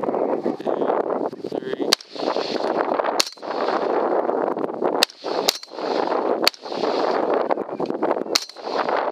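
Rifle shots: six sharp cracks at uneven intervals over steady wind noise on the microphone.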